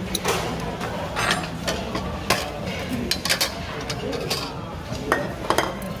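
Eating utensils clinking against bowls and dishes at a table: a string of separate sharp clinks as food is stirred and served.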